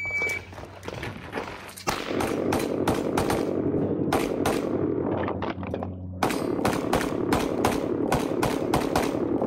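Shot timer's start beep, one short high tone, then rapid pistol fire from a 38 Super open-division race gun. About two seconds in, quick strings of shots begin, several a second, with a brief break a little past halfway before the firing picks up again.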